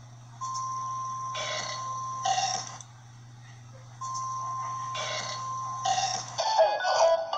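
A burp sound, played twice, each time overlapping a steady high beep that starts about a second before it, over a low steady hum. Near the end a different clip with speech and music starts.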